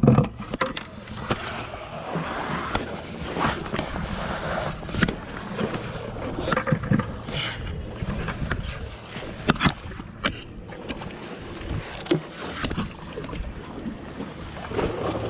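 A plastic five-gallon bucket and its wire bail handle being handled on rocks: scattered knocks, clicks and clatter over a steady wash of wind and sea water.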